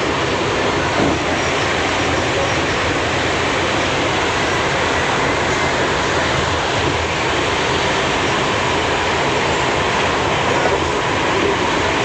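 A train running, a loud steady rushing rumble that holds level throughout.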